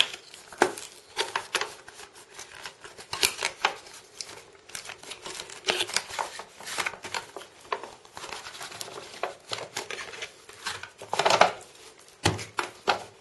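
Cardboard phone box being opened by hand: irregular scrapes, rustles and clicks as the tab is pulled out and the flaps are folded back.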